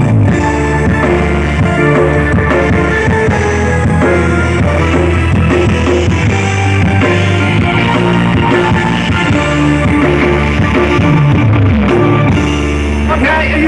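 Loud music with guitar and a heavy bass line, played through a large outdoor sound system of stacked speaker cabinets at a sound check.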